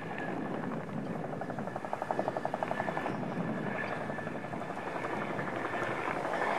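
Helicopter flying nearby, its rotor beating in a fast, even pulse over a steady engine noise.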